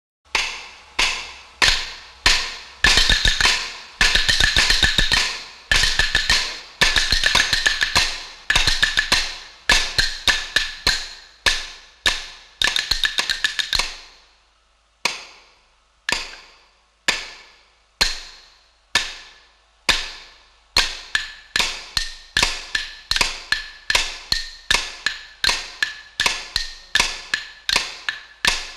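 Chenda practice on stone: wooden sticks beaten on granite practice blocks, giving sharp, ringing clacks. For about the first half they come in fast dense rolls. Then they fall to single even strokes about one a second, and quicken to about two a second near the end.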